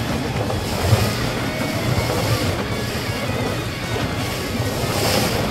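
Small boat's motor running steadily with a low hum, under wind and the wash of water against the hull.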